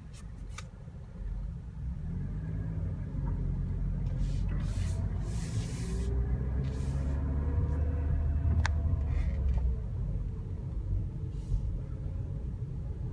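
2016 Scion iM's 1.8-litre four-cylinder engine and tyres heard from inside the cabin as the car drives slowly: a low rumble that builds over the first two seconds and then holds, with its pitch drifting. There are a few brief clicks and a short hiss around the middle.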